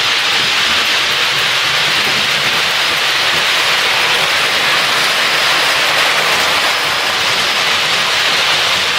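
Steady, loud rushing hiss like heavy rain, even throughout with no rhythm or distinct tones.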